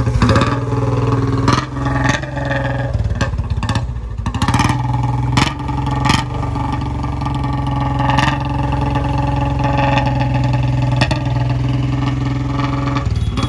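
Royal Enfield Bullet 350's single-cylinder engine just started on choke after standing unused for weeks, running roughly, faltering about 1.5 and 4 seconds in, then steadier. It lacks the Bullet's usual thump, which the owner puts down to the engine oil having run out.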